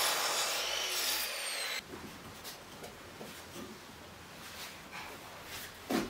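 Metabo sliding miter saw cutting through a wooden board, its whine falling as the blade slows, cut off abruptly about two seconds in. Then faint pencil scratching on wood, and a single knock near the end.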